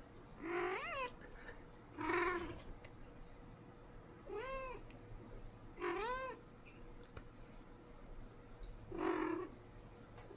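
Norwegian Forest cat meowing five times, short calls of about half a second each that rise and fall in pitch, spaced a second or more apart.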